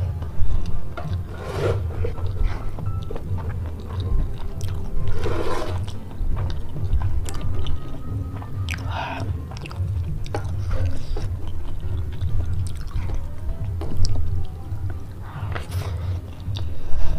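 Close-miked wet chewing and mouth sounds from eating spicy stir-fried squid and rice by hand. A few short louder smacks stand out over a steady low rumble, with music underneath.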